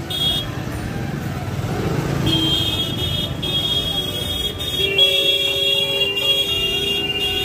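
Busy market lane street noise: a motorbike passing close in the first few seconds, and vehicle horns sounding, with high, held honks through much of it.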